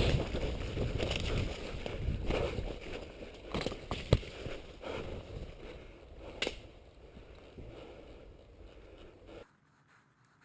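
Rumbling and rustling handling noise from a helmet-mounted action camera moving through woodland undergrowth, with a few sharp snaps. It fades and cuts off suddenly near the end.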